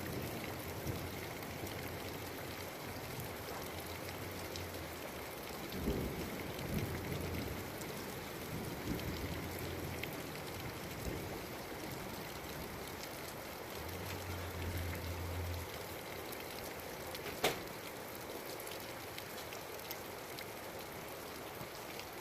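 Steady rain falling, with low rumbles of thunder about a quarter of the way in and again past the middle. A single sharp tap comes about three-quarters of the way through.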